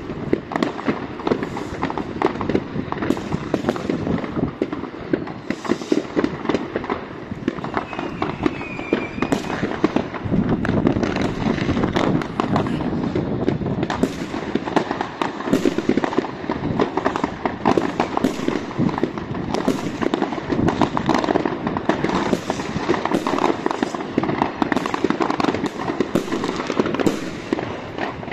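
Many fireworks going off at once: rockets bursting and firecrackers banging and crackling in a dense, unbroken barrage.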